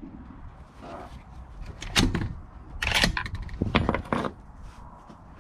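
A handful of sharp clacks and knocks about two to four seconds in, over a low rumble: the clatter of gear and equipment being handled.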